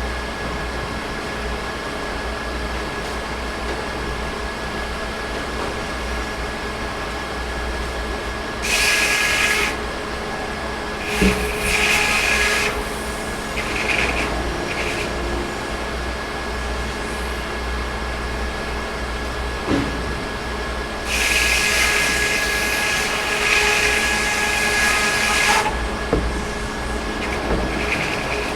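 Sawmill running with a steady low engine drone and a thin steady whine, broken by louder hissing bursts as the saw cuts through pine: two short ones near the start and one longer one, about four seconds, past the middle.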